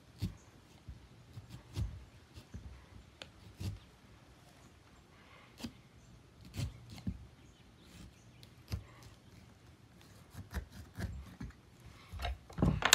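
Small pumpkin-carving saw working through a pumpkin's rind: irregular short scraping strokes and clicks, with a few louder knocks near the end.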